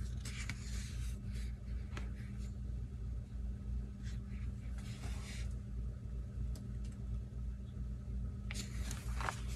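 Faint rustling and handling of a paper sticker book, in a few soft patches, over a steady low background hum.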